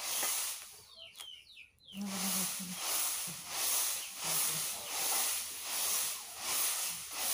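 Puffed rice shaken back and forth in a large woven bamboo sieve, a rhythmic swishing rattle about three strokes every two seconds, as the roasting sand sifts out through the weave. The shaking pauses briefly about a second in.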